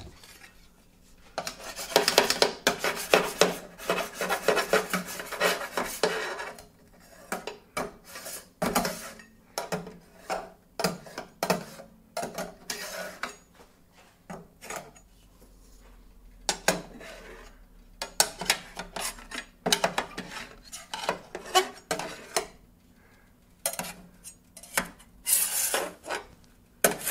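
Scraping and scrubbing on the metal cooking surface of a Vevor 22-inch cast iron flat top griddle during cleaning. A fast run of back-and-forth strokes for a few seconds, then scattered strokes and knocks with short pauses, and another quick run near the end.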